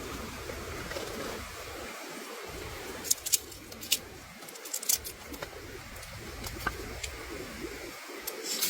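A bird calling over a steady low hiss, with a few sharp clicks and taps about three to five seconds in and again near the end.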